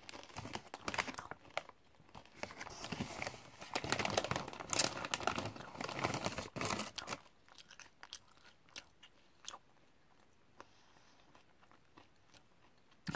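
A person crunching and chewing Popworks popcorn crisps close to the microphone: dense crunching for about the first seven seconds, then only occasional small crackles as the chewing winds down.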